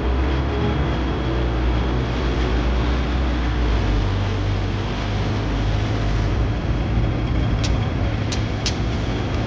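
Steady traffic at a busy intersection: a low rumble of bus and car engines and tyres, with a double-decker bus passing about four seconds in. Three short, sharp clicks near the end.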